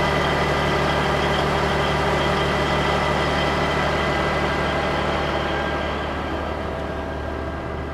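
Heavy wrecker tow truck's diesel engine running steadily, with a steady high whine over it, easing off a little near the end.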